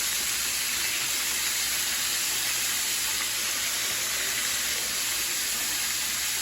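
Pieces of bull testicles sizzling steadily in a pot of hot frying oil, a continuous hiss.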